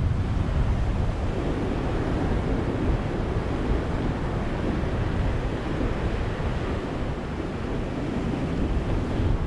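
Ocean surf: a steady rush of waves breaking on a beach, swelling and easing gently, with a deep rumble underneath.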